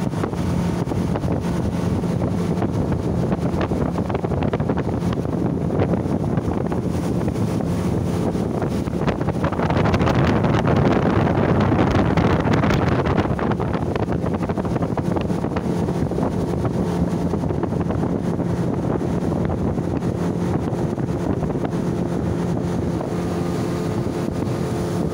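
Speedboat engine running steadily at speed, with water rushing along the hull and wind buffeting the microphone; the rush of water swells louder for a few seconds midway.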